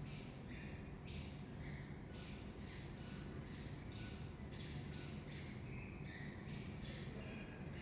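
A child's repeated high-pitched squeaking, about two squeaks a second in a steady rhythm, over a low steady hum.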